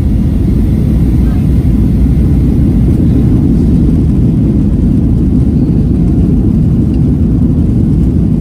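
Steady, loud low rumble of cabin noise aboard a Boeing 737-900 airliner.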